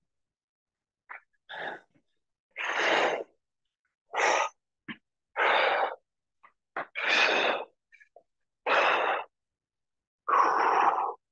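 A man breathing hard from exertion during lunge reps: about six forceful, breathy exhales, one every second and a half or so, with quiet between them.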